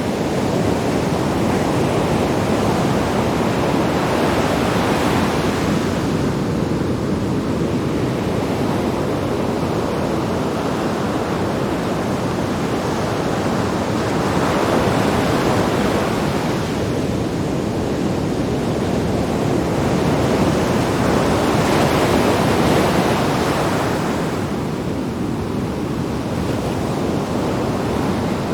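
Sea waves breaking on rocks, a continuous wash of surf that swells with each breaking wave, several times, over a low rumble.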